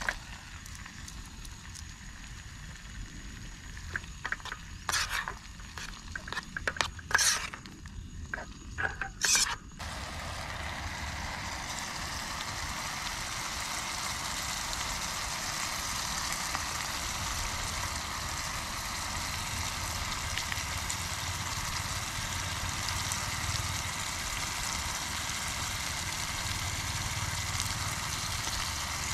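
Cooking on a portable gas camp stove: a few sharp clatters of utensils, then about ten seconds in a steady sizzle starts suddenly and keeps going, like food going into a hot pan.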